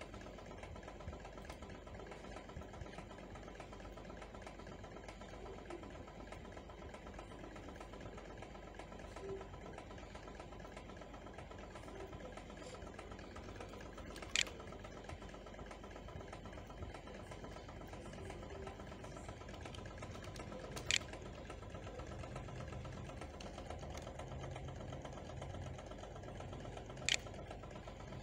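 A steady, quiet background hum, broken by three sharp computer clicks spaced several seconds apart.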